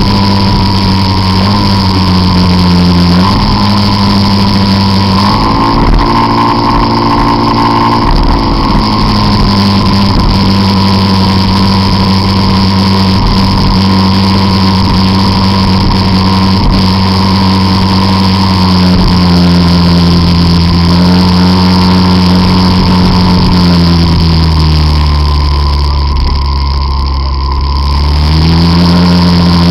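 Peugeot Jetforce Compressor scooter engine running hard at road speed, heard from a camera mounted on the scooter. The note holds fairly steady, lifts briefly about six seconds in, drops for a few seconds near the end and then climbs again.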